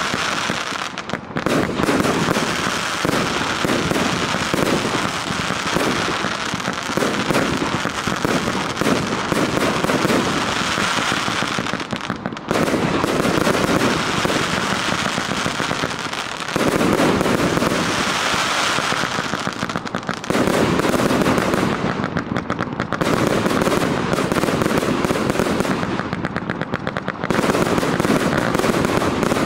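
A 1088-shot fireworks cake firing: a dense, rapid stream of launch shots and bursting shells, with a few brief lulls between sequences.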